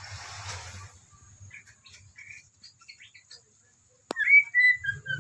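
Oriental magpie-robin chick calling while being fed crickets: a few faint short chirps, then, after a sharp click about four seconds in, loud wavering whistled calls that slide down in pitch, typical begging calls of a young bird at feeding.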